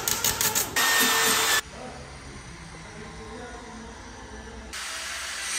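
Electric arc welding: about a second and a half of the arc crackling and hissing, cutting off abruptly. This is followed by quieter workshop background, and a steady hiss starts near the end.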